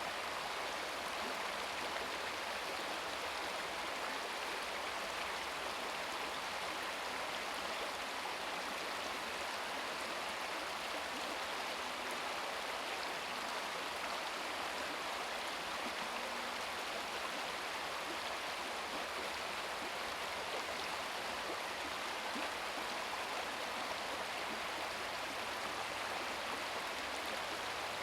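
Small brook babbling steadily, shallow water running over stones.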